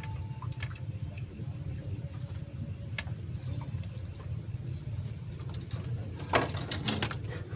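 Insects, such as crickets, trilling steadily with a regular pulsing chirp a few times a second, over a low steady rumble. Near the end come two short, loud rattling bursts.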